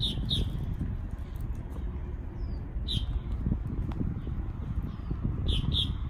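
Short high chirps in pairs, near the start, about three seconds in and near the end, over a steady low rumbling outdoor background.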